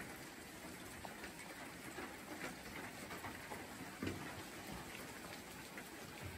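Faint, steady rain falling in a tree-fern forest, with scattered single drops landing on leaves; one drop about four seconds in is a little louder.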